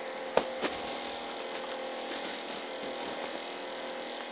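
Slime being squished and stretched in the hand, giving two short sticky pops about half a second in and another near the end, over a steady faint hum and hiss.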